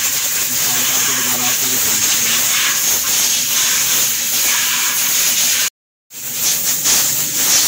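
Steady, loud hiss of escaping pressurised gas, broken by a brief gap about six seconds in.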